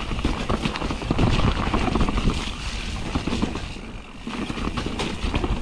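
Santa Cruz Nomad full-suspension mountain bike riding down a rough dirt singletrack: tyres rolling and crunching, with rapid rattling and knocking over bumps and wind buffeting the microphone. It eases briefly about four seconds in, then picks up again.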